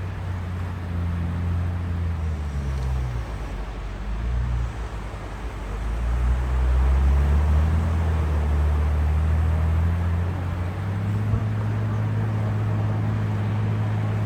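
A low engine drone with a steady hum that shifts in pitch a couple of times, over an even wash of sea waves.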